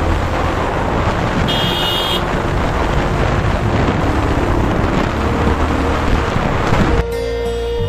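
Wind rushing over the microphone of a moving motorcycle, with its engine running underneath. A brief high-pitched tone sounds about a second and a half in, and background music comes back in near the end.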